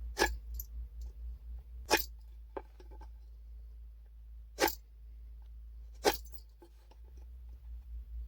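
Handmade wooden marking gauge and board being handled on a workbench while scribing a line around the board: four sharp wooden knocks a second or two apart, with a few lighter taps between them.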